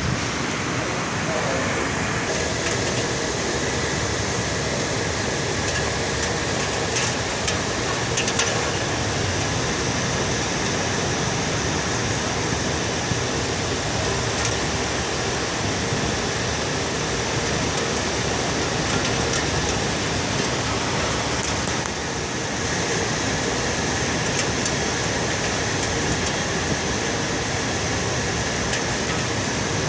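Heavy rain falling: a steady, even hiss, with a few brief clicks.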